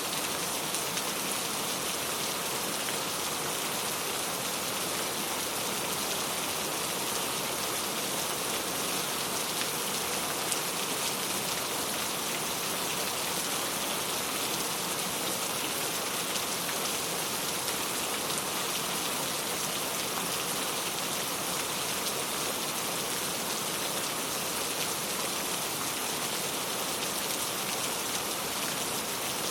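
Steady rain falling, with many small drops pattering on surfaces, even and unbroken throughout.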